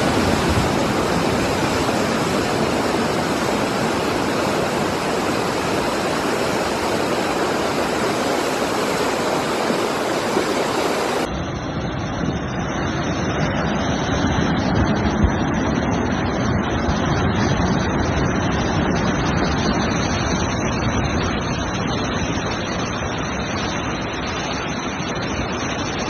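Muddy flash-flood water rushing and churning: a loud, steady noise of fast-moving water. The sound changes abruptly about eleven seconds in, where a second recording of a torrent in a rocky wadi takes over.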